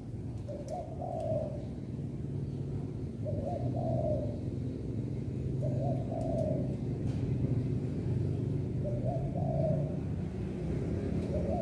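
Spotted dove cooing: five phrases of about a second each, repeating roughly every two and a half seconds, over a steady low rumble.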